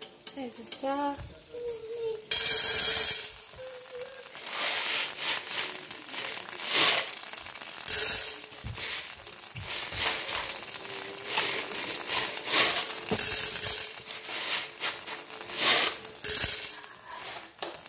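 Dry popcorn kernels poured into an empty nonstick frying pan, then clicking and rattling against the pan as they are spread out by hand. There is a loud rush of pouring a couple of seconds in, followed by scattered clicks and short rushes.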